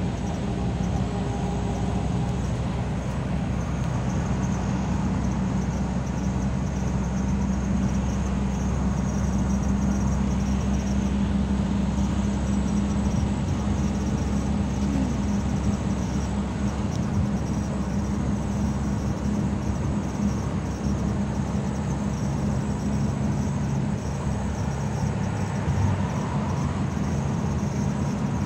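Steady engine and road hum heard from inside a moving car's cabin.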